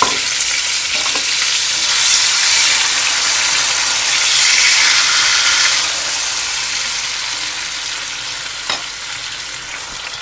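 Diced tomatoes sizzling loudly in hot oil with fried garlic as they are stirred in the pan. The sizzle is strongest in the middle and eases off toward the end, with one sharp click near the end.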